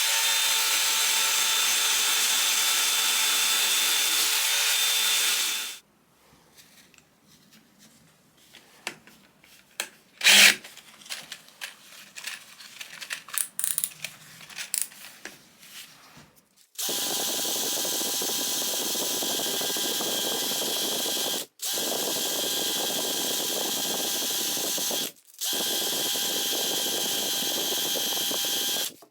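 A handheld electric power tool's motor running at a steady speed: one run of about six seconds, then light clicks and a single sharp knock as the tool is handled, then three further runs of about four seconds each, split by short stops.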